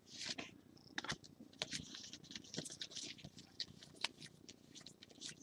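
Glossy 2016 Topps Premier Gold trading cards being slid and flicked through by hand, a faint, irregular run of small clicks and rustles as card rubs against card.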